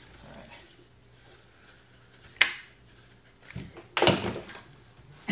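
Cardboard and tools being handled on a workbench during hot-glue assembly: one sharp click about two and a half seconds in, then a short clatter of rustling and knocks around four seconds.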